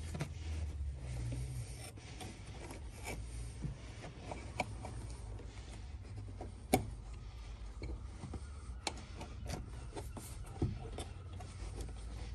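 Hands rubbing and pressing a carpet panel into place, a soft scuffing with scattered light clicks and taps, one sharper click about seven seconds in.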